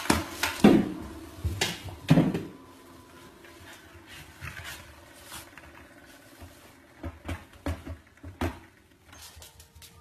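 Automatic dog ball launcher firing with a sharp pop, then a French bulldog gives two loud barks, about 0.7 s and 2 s in. A few short knocks follow later on.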